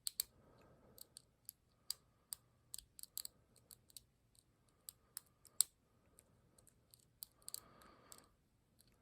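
Small, sharp, irregular clicks of a lock pick and tension tool working the pins inside a ZI Ikon pin-tumbler padlock, more than a dozen over the stretch.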